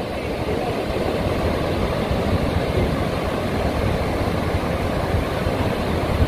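Breaking ocean surf on a beach: a steady, rumbling wash of waves with no distinct events.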